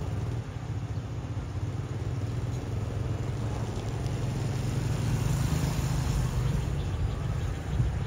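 Diesel engine of the State Railway of Thailand GEK-class locomotive 4004 running with a steady low rumble as the train approaches, growing a little louder partway through.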